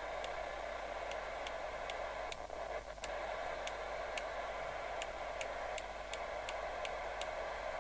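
Kernow Beta 2100 UK FM CB radio hissing from its speaker with the squelch open. Through the hiss, its channel selector clicks over step by step, about two clicks a second.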